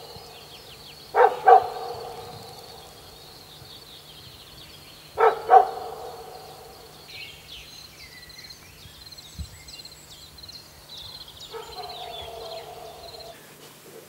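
An animal barking in pairs of two quick barks, once about a second in and again about five seconds in. Faint bird chirps carry on behind.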